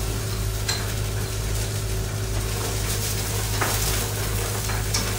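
Chopped onion sizzling as it fries in a pan on a gas stove, with a utensil stirring and a few light clicks against the pan. A steady low hum runs underneath.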